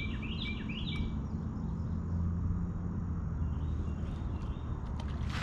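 A bird calling: a quick run of short, falling chirps in about the first second, and a few fainter ones later, over a steady low rumble.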